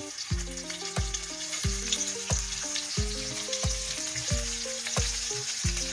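Chopped garlic sizzling in hot cooking oil in a wok, with a steady frying hiss. Background music with a steady beat plays underneath.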